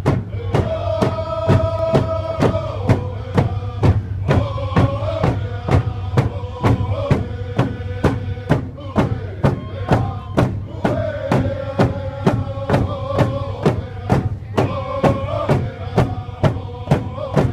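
Hand drum beaten in a steady beat of about three strikes a second, while a group of voices sings a chant in long held notes: a Native American drum song.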